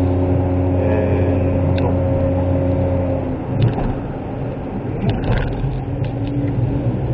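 Suzuki Wagon R kei car's three-cylinder engine droning steadily, heard from inside the cabin over tyre noise. About three seconds in the steady drone drops away and the engine note turns lower and uneven, with a few light knocks and rattles.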